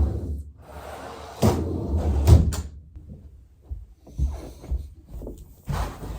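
Foam roller rolling and creaking under a body, with rustling and low thuds, and a couple of sharp clicks a little over two seconds in.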